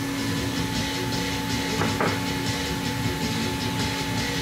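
Steady mechanical hum with several constant tones over a low rumble and hiss, with a few light clicks about two seconds in.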